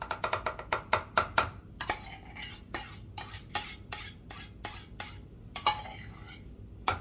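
A kitchen utensil clinking and scraping against cookware while cheese sauce is spooned out onto fries. A quick run of clicks comes in the first second and a half, then slower, irregular scrapes and knocks.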